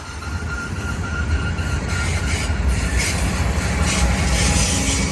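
Heavy BNSF freight train of loaded steel coil cars rolling past, its wheels rumbling on the rails and growing louder over the first two seconds. A thin steady wheel squeal sounds in the first couple of seconds.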